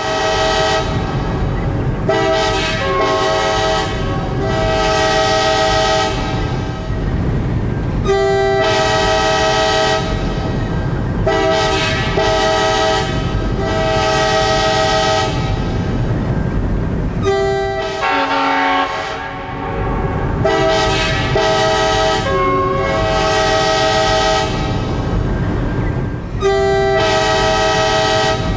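Locomotive air horn sounding a string of blasts, some short and some held for several seconds, each a chord of several steady notes, over a steady low rumble of the train.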